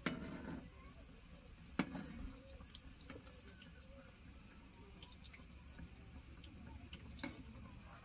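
Food frying in oil in a large wok over a wood fire: faint steady sizzling and crackling, with a few sharp clinks of the metal skimmer against the pan, the loudest about two seconds in.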